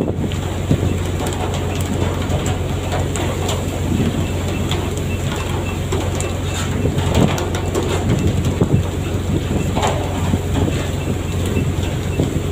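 A fishing boat's engine runs with a steady low hum under a rushing noise, with scattered knocks and clatter.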